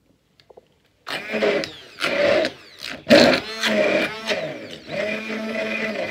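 Handheld immersion (stick) blender whipping thick, set body lotion in a plastic jug. It starts about a second in with several short bursts, then runs steadily with a motor whine as the blade churns the cream.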